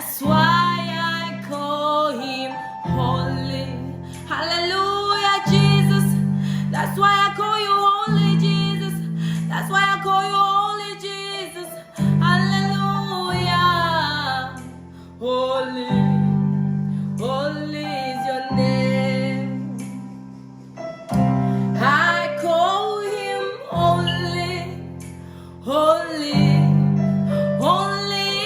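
A woman singing a slow song over sustained keyboard and guitar chords that change every two to three seconds.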